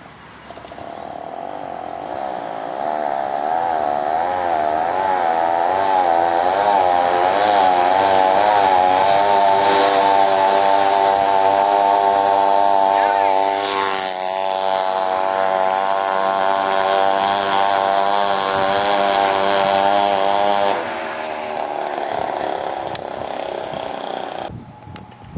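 Small two-stroke engines, a 32cc McCulloch chainsaw engine and an 18cc weed-eater engine on motorized scooters, running flat out in a drag race. The sound builds over the first few seconds with a wavering pitch, settles into a steady high-pitched buzz that dips briefly about halfway, then falls off sharply about three quarters of the way through.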